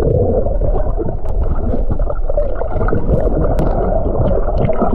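Muffled underwater sound heard by a camera held under shallow sea water: a steady dull rumble and gurgling of moving water, with scattered small clicks and bubbling.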